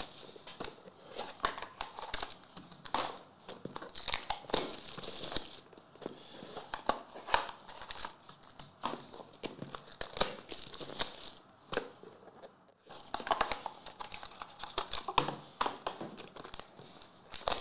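Plastic wrapping and foil trading-card packs crinkling and tearing in irregular bursts as a sealed card box is opened and its packs are handled.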